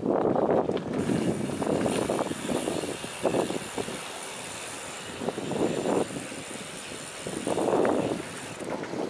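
Bicycle rolling across a wooden-plank bridge deck: uneven surges of tyre rumble and rattle, with a faint steady high whine through most of it.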